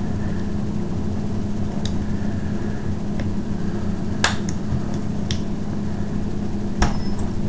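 Sharp metallic clicks of a crown cap being pried gently off a beer bottle, about five scattered clicks with the sharpest about four seconds in and another near the end, over a steady low hum.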